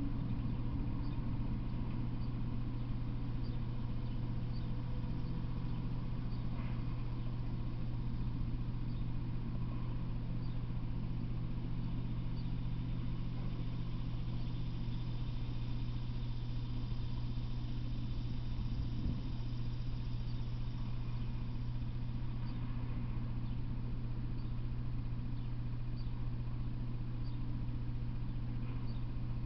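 A steady low hum with no train passing, and faint high ticks recurring about once a second.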